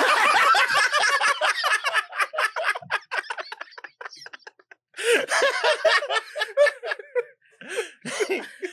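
Several people laughing hard in rapid bursts. It trails off about four seconds in, then a second round of laughter starts about a second later.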